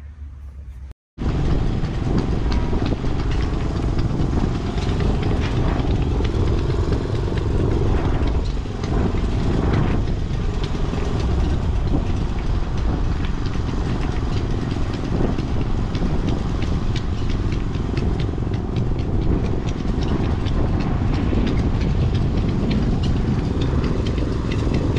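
Detroit Diesel 16V-71N two-stroke V16 diesel (1136 cubic inches) running steadily at a constant speed. The loud engine sound cuts in abruptly about a second in.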